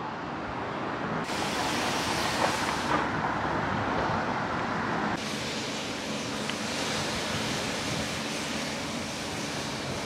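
Steady outdoor noise: wind on the microphone with distant road traffic, changing abruptly a few times.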